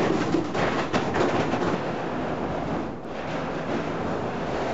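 Steady rumbling noise inside a working tower windmill as its sails turn in the wind, with faint irregular knocks.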